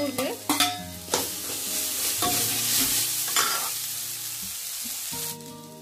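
A spoon scraping and clinking in a pan while chuda upma (flattened-rice upma) is stirred, with a few sharp clicks in the first second. Then a steady sizzle of frying, which cuts off suddenly near the end.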